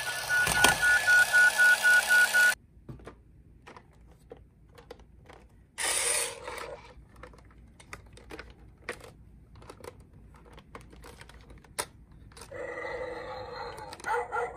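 Toy police car's battery-powered electronic siren, a rapidly pulsing tone that cuts off suddenly about two and a half seconds in. Then hard plastic toy cars clicking and knocking as they are handled in a cardboard box. Near the end another electronic sound effect from the toy starts.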